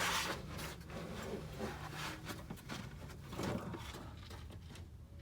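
Rustling and scattered small clicks and taps of hands handling a new spark plug wire, working its end into the distributor cap. The handling noise is busiest at the start and fades away over the last second or so.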